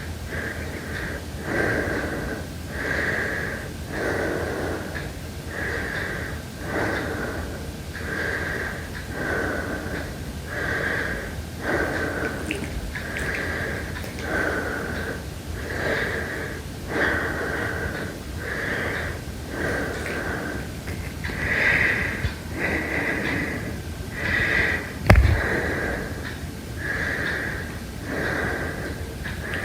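A person breathing heavily and fast, in and out in a steady rhythm with a breath about every second and a wheezy edge. A sharp click about 25 seconds in stands out above the breathing.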